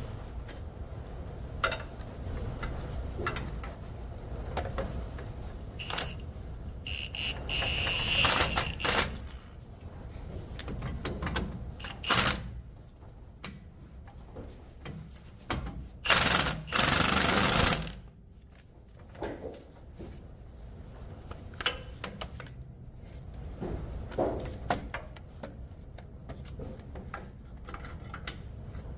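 Hand-tool work on a pickup's rear axle: scattered metal clicks and knocks, a stretch of scraping about eight seconds in, and a loud two-second burst of noise about sixteen seconds in.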